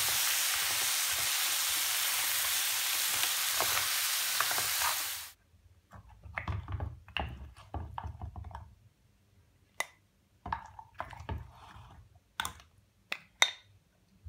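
Mussel and vegetable stir fry sizzling steadily in a frying pan as a wooden spoon stirs it. About five seconds in the sizzle cuts off suddenly, and scattered knocks and clinks follow as mussels are spooned onto a ceramic plate.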